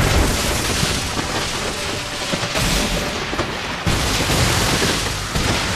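Anime sound effect: a dense, loud rushing rumble like a blast or a strong wind. It swells about halfway through.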